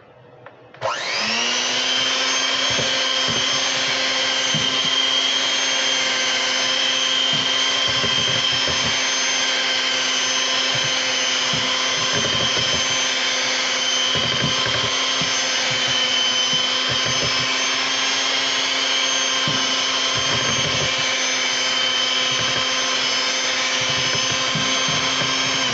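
Electric hand mixer switched on about a second in and running steadily at one speed, a constant motor whine as its beaters work through creamed butter, sugar and a freshly added egg.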